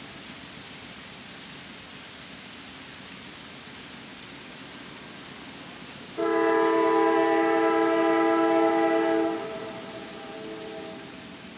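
Diesel freight locomotive's multi-chime air horn sounding one long blast that starts abruptly about six seconds in and lasts about three seconds, then trails off more quietly for another second or two. Before the blast there is a steady wind-like hiss, with the tail of an earlier horn blast dying away at the very start.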